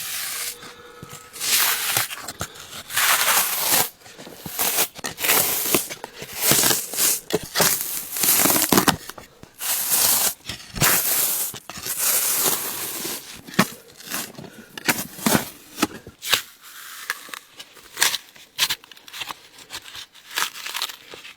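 Bark being stripped from a Phellodendron (huangbai) branch in a series of long tearing pulls. Shorter, sharper crackling snaps follow near the end.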